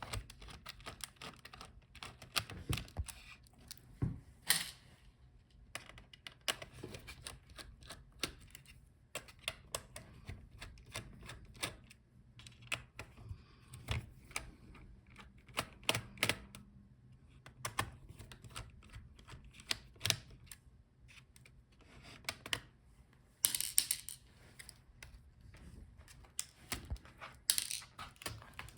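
Small metal screws being taken out of a laptop's chassis with a screwdriver, with a stream of irregular light clicks and taps of the tool and screws on the metal and plastic. Twice near the end there is a louder, brief scraping rustle.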